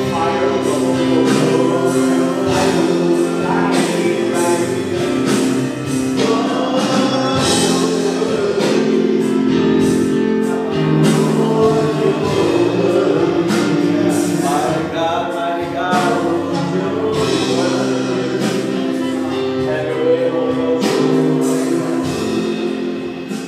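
Live gospel worship music: singing over sustained chords and a drum kit, with steady cymbal and drum hits.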